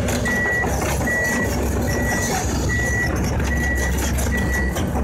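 Kobelco excavator's travel alarm beeping, six evenly spaced high beeps about every 0.8 s, over its diesel engine running as the machine moves.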